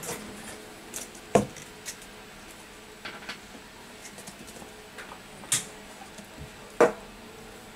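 A handful of sharp clicks and light taps at uneven intervals, the loudest about a second and a half in and twice near the end.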